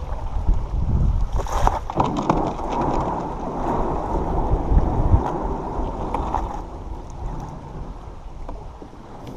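Creek water rushing past a canoe, with wind buffeting the microphone and a few sharp knocks about a second and a half in; the rush eases off over the last few seconds.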